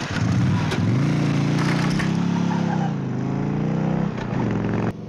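Harley-Davidson Electra Glide V-twin motorcycle engine revving hard as the bike pulls away. Its pitch climbs, dips once midway, climbs again and holds, then falls away sharply near the end.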